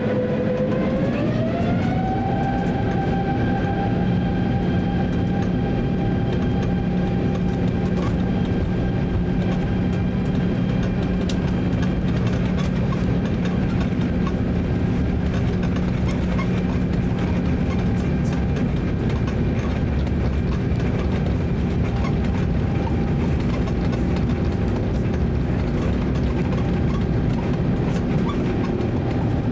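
Airbus A350-900 cabin while taxiing: the Rolls-Royce Trent XWB engines' whine rises in pitch over the first two seconds as thrust is added, then holds steady over a constant low hum.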